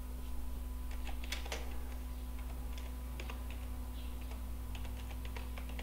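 Typing on a computer keyboard: an irregular run of separate key clicks, over a steady low electrical hum.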